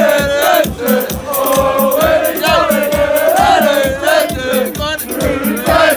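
Crowd of football fans singing a chant together, loud and close, with about three sharp hits a second keeping time.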